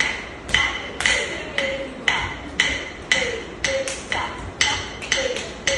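A wooden stick striking a wooden block (thattu kazhi) in a steady beat, about two sharp strikes a second with some quicker pairs, each leaving a short ringing tone. It keeps time for Bharatanatyam dance steps.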